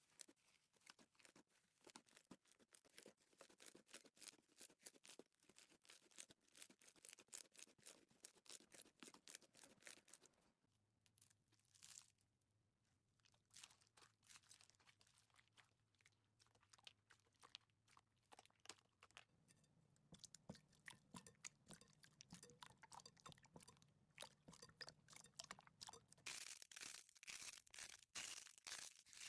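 Slime being squeezed and poked by hand, giving a dense run of small crackling clicks and pops. There is a lull about ten seconds in, and the crackling grows louder near the end before stopping abruptly.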